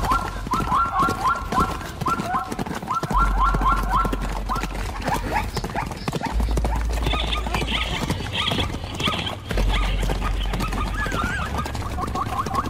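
Zebras barking: quick runs of short, repeated yelping calls, about four or five a second, strongest in the first two seconds, with a higher run of calls in the middle.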